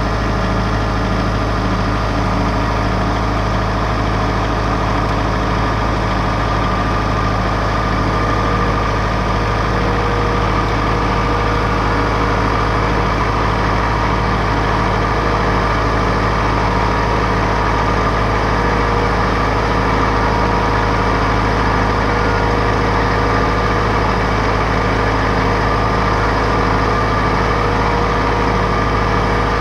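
John Deere 4066R compact tractor's three-cylinder diesel engine running at a steady speed, a constant engine hum with a few steady tones on top.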